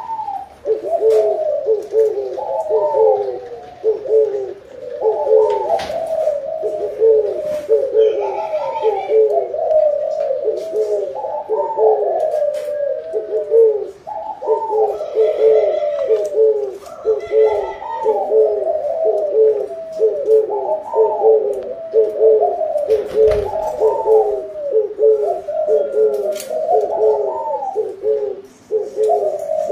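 Spotted doves cooing without pause, their repeated phrases overlapping one another, with a few faint clicks scattered through.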